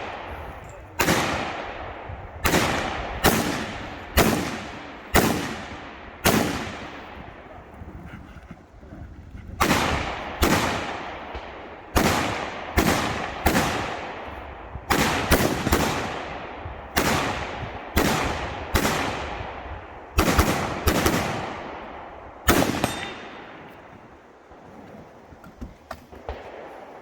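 Rifle firing a string of about twenty single shots at roughly one a second, each with a long echoing tail, with a pause of about three seconds partway through. The shooting stops a few seconds before the end.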